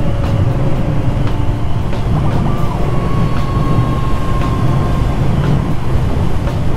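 Triumph Thruxton R's 1200 cc parallel-twin engine running steadily at road speed, under heavy wind rumble on the microphone. The engine note eases slightly in the middle.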